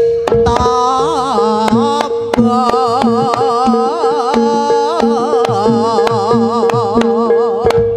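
Jaranan dance accompaniment music: a wavering melody with heavy vibrato over a steady held drone, driven by a regular drum beat. The music breaks off and resumes at the very start and again near the end.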